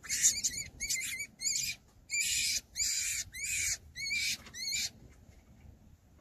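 An animal's high-pitched call, repeated about nine times in quick succession over the first five seconds, each call short with a bending pitch.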